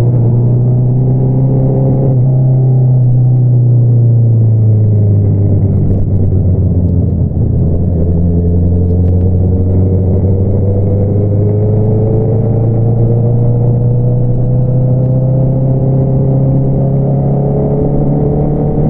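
2022 Honda CBR650R's inline-four engine through an Akrapovič single-outlet exhaust while riding. The revs fall over the first several seconds, hold low briefly, then climb slowly and steadily as the bike gently accelerates.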